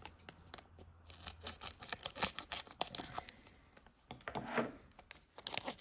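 Foil booster-pack wrapper crinkling and crackling in the hands, an uneven run of sharp crackles.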